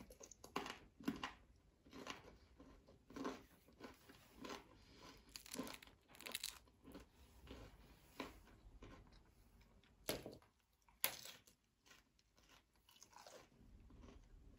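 Faint, irregular crunching and crackling of a thin, crisp-baked tarte flambée crust, with two louder crunches about ten and eleven seconds in.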